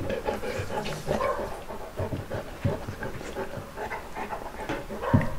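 A Saint Bernard chewing pieces of meat, with wet smacking and clicking mouth sounds and breathing between bites, and a sharper knock near the end.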